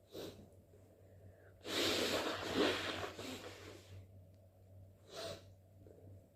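A person's loud, wet blast of air through the nose, lasting about two seconds and starting nearly two seconds in. Short breaths come just before it and again near the end.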